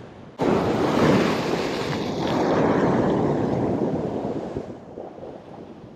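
Ocean surf washing over a rock ledge: a wave surges in suddenly about half a second in and subsides over the next few seconds, with some wind on the microphone.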